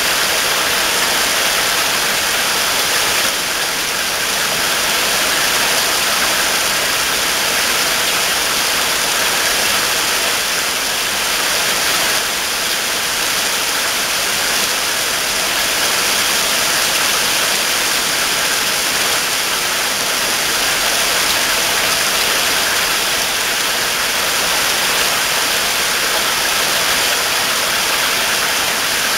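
Steady downpour of rain, a loud, dense, even hiss that does not let up.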